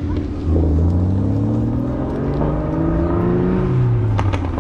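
Car engine accelerating, its note climbing steadily for about three seconds and then dropping off, with a couple of sharp clicks near the end.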